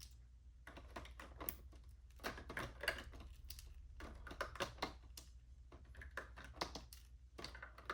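Faint, irregular plastic clicks and taps from mechanical keyboard switches being handled and pressed, several a second with short gaps.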